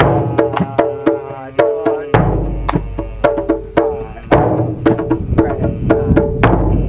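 Rasta drumming: a large bass drum struck with a padded beater, booming deep about every two seconds, under quicker sharp hand-drum strokes at about three or four a second. A voice sings a held chant over the drums.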